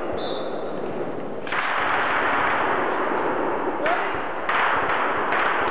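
LMg 05 light machine gun (the Swiss Army's FN Minimi) firing in the background: long bursts that start and stop abruptly, running almost without pause from about a second and a half in.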